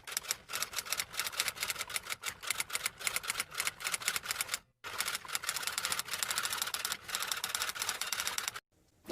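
Rapid typewriter keys clacking, in two runs separated by a short break about four and a half seconds in.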